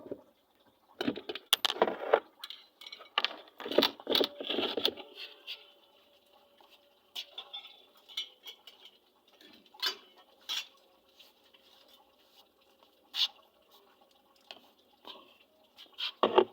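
Small metal parts clinking and clattering as they are handled: dense clattering over the first few seconds, then scattered single clicks and knocks.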